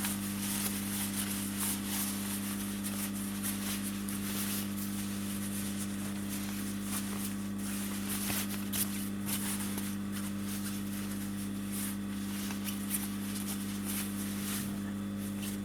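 Steady electrical hum, with faint rustling and small clicks of fabric and thread being handled.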